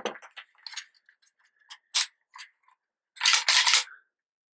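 Mechanical clicks and knocks of a GHK AKMS gas blowback airsoft rifle being handled, with a sharp click about two seconds in and a quick run of clacks near the end.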